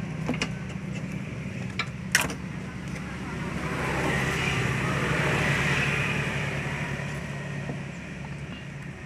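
A few sharp clicks of plastic wiring connectors being handled and plugged onto a Honda Vario 110 FI's throttle body and fuel injector, over a steady low hum. A passing vehicle swells and fades in the middle.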